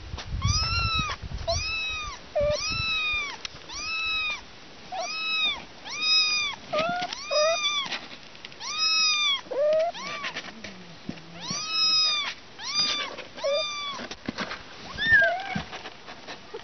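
Kittens mewing over and over: high, arching mews about one a second, with a few shorter, lower mews in between and a brief pause a little past halfway.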